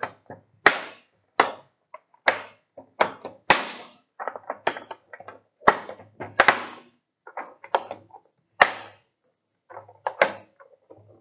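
Metal latch clips on an LED vapor-tight light fixture being snapped shut one after another over the lens: a series of sharp snaps, about one a second.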